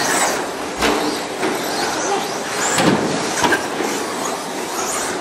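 Several RC short course trucks racing: a steady mix of motor whine and tyre noise, with a few sharp knocks and a brief rise and fall in pitch near the middle as one revs.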